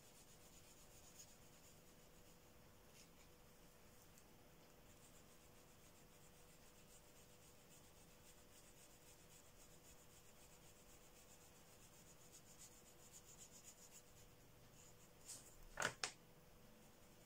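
Faint scratching of a felt-tip marker colouring on paper, coming and going in short strokes. Near the end come three sharp clicks close together.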